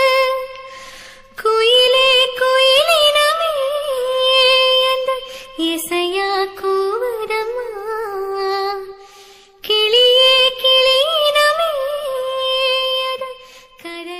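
A woman singing a slow Tamil love song, long held notes with gentle ornaments, in long phrases separated by short breaks.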